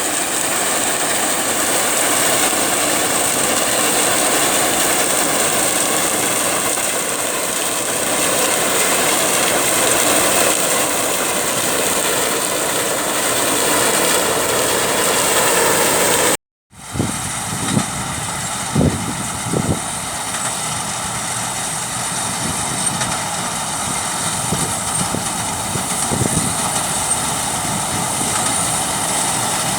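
Tracked combine harvester running steadily, engine and threshing machinery working while it cuts mustard. The sound drops out briefly just past halfway, then returns with a few sharp knocks.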